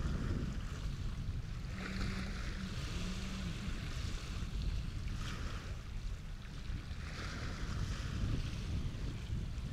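Wind rumbling on the microphone, with water splashing or washing in swells every two to three seconds.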